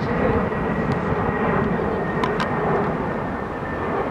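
Steady low rumbling outdoor noise, with a few faint sharp clicks.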